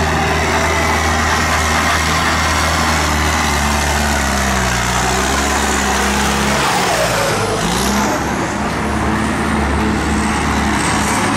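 Tractor engines running steadily, their engine note shifting about seven seconds in as one changes revs.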